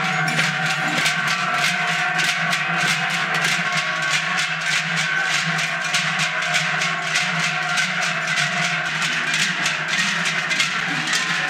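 Many large cowbells strapped to the backs of Basque joaldun dancers clanging together in a fast, even rhythm as the troupe marches in step, the bells' ringing notes running on under each clang.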